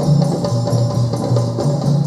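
Djembe drums played together in a steady rhythm, over a low bass line that moves from note to note.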